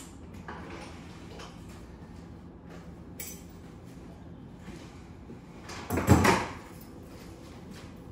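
Small knocks and clicks, then a loud clattering thud about six seconds in, as gear is handled and set down in the open cargo area of a Toyota 4Runner.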